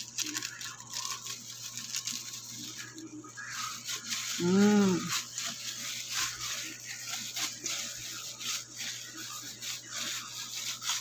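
A plastic-gloved hand kneading and squishing a mashed tempeh mixture in a stainless steel bowl, with a run of scratchy crackles from the glove and the mix. About halfway through, a short pitched voice sound rises and falls.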